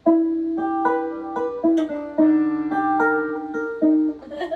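Electrified banjo playing a short melodic phrase of single plucked notes over a ringing lower note; it starts suddenly and stops a little before the end.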